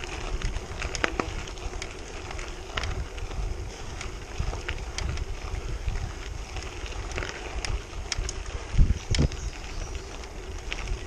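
Bicycle tyres rolling over a gravel road: a steady crunch with scattered clicks of loose stones, and wind buffeting the microphone. Two loud thumps close together near the end.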